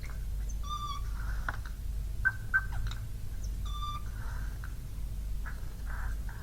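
Siberian jay calling: two short, clear pitched notes about three seconds apart, with hoarse, breathy cough-like notes between and after them, the bird's mimicry of a cough. Two sharp clicks come a little past two seconds in.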